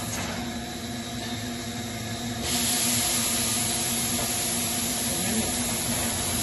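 Thermoforming machine running with a steady hum; about two and a half seconds in, a loud hiss of air starts suddenly and holds steady.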